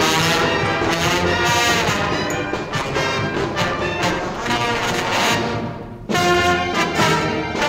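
Brass band music, with trombones and trumpets playing held chords. The music dips about six seconds in, then comes back loud on a new chord.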